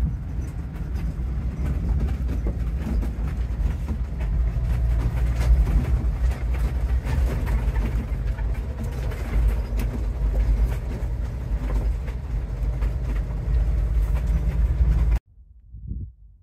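Inside the cab of a pickup truck driving on a gravel desert road: a steady, loud low rumble of engine and tyres with frequent small rattles and knocks. It cuts off suddenly near the end, leaving only a few faint low thumps.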